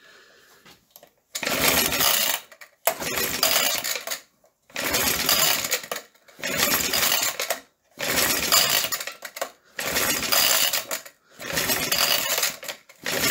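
Vintage Suffolk small engine being pulled over on its starter about eight times in a row, each pull a second or so of rapid whirring clatter, the engine turning over without firing. It will not catch because the plug is getting no spark.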